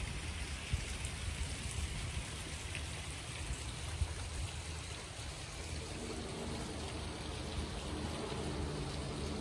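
Steady splash and rush of water from a backyard pond waterfall, over a low rumble. About six seconds in, a faint low drone joins in.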